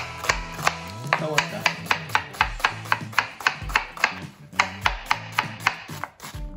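Chef's knife dicing an onion on a wooden cutting board: sharp, even chops about three a second, with background music underneath.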